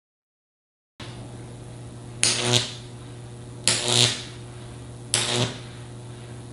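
High-voltage arcing from a 15,000-volt neon sign transformer burning a Lichtenberg figure into baking-soda-soaked MDF. From about a second in, a steady electrical hum runs under it, and three short, loud crackling buzzes come about a second and a half apart, each as the arc flares across the wet wood.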